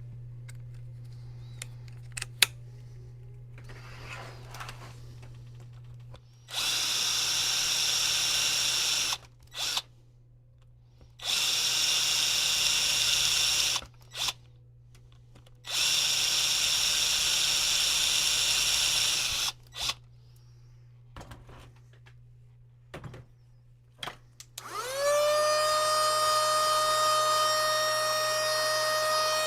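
Small handheld electric power tool running in three bursts of a few seconds each with a steady high whine. Near the end its motor spins up and runs on at a steady pitch.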